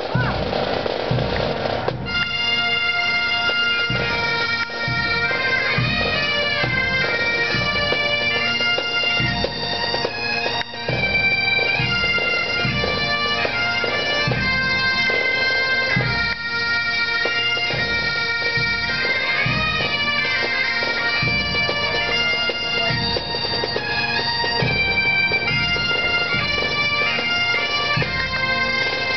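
Great Highland bagpipe playing a tune over its steady drones, the melody coming in about two seconds in.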